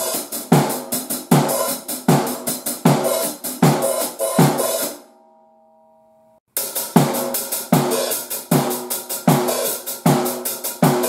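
Drum kit groove with 14-inch Paiste 2002 hi-hats over kick and snare. The playing stops about five seconds in, a brief steady tone sounds, and the groove starts again about a second and a half later.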